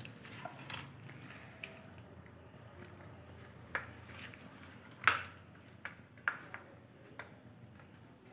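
A hand squishing chicken lollipops through a thick cornflour marinade in a steel bowl, soft and wet, with a few sharp clicks against the bowl, the loudest about five seconds in.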